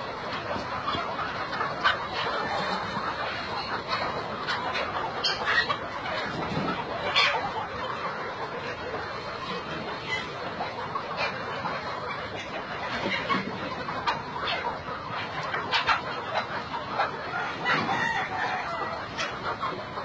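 A large flock of chickens clucking and calling all at once, a dense unbroken din with single louder calls standing out every few seconds.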